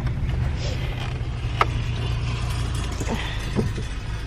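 Steady low road rumble inside a moving car's cabin, with a few light creaks and clicks: one about a second and a half in, two more after three seconds.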